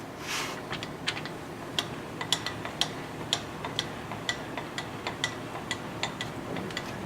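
Lathe carriage being traversed along the bed by its handwheel, clicking sharply and evenly about twice a second, after a short rustle at the start.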